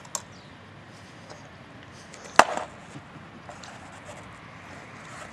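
Streetsurfing caster board knocking on asphalt: a couple of light clicks near the start, then one sharp clack about two and a half seconds in as the rider gets onto the board.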